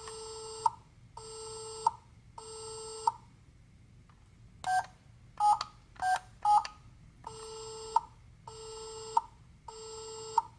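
Miraculous Ladybug Compact Caller toy phone playing an electronic busy signal: three even pulses, then a few short beeps as its buttons are pressed, then four more busy-signal pulses. The busy signal is the toy's response to a wrong number being dialled.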